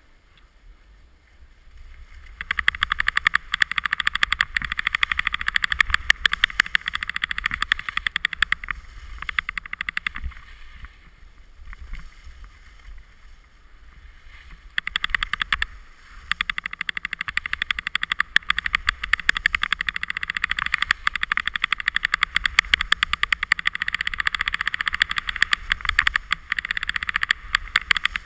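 Alpine skis running and scraping over hard-packed snow: a rough, rapid scraping hiss that starts about two seconds in, eases off for a few seconds near the middle, then picks up again, with a low rumble underneath.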